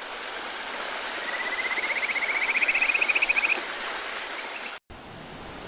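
Steady rushing of a mountain stream. A rapid pulsed call, rising in pitch and growing louder, sounds over it for about two seconds. The rush cuts out briefly near the end and comes back a little quieter.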